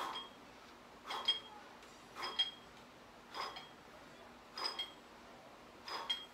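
A pair of 25 lb dumbbells clinking with each repetition of a lift: six short metallic clinks with a brief ring, about one a second.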